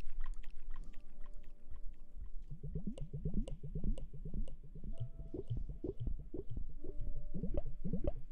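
Wet squishing from hands working lather or water through hair in quick repeated strokes, starting about two and a half seconds in.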